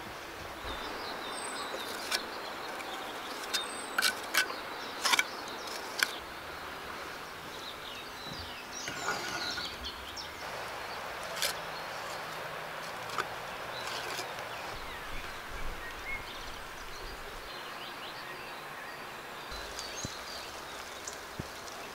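Outdoor background with faint bird chirps, broken by scattered sharp knocks and taps of bricks being set on a brick chimney, most of them in the first few seconds.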